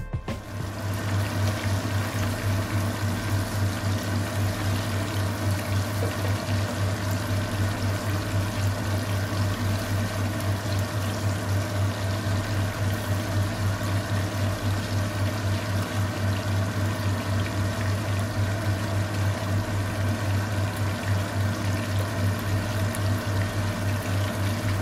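Flour-coated chicken wings deep-frying in hot vegetable oil, a steady dense sizzle and crackle, over a steady low hum. The sizzle starts abruptly just at the start.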